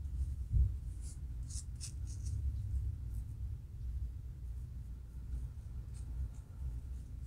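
Fingernails and a fine-toothed plastic comb scratching a dry, flaky scalp between locs, lifting dandruff: a cluster of short, raspy scratches about a second in and a few more around six seconds, over a steady low rumble. A soft thump comes just before the first scratches.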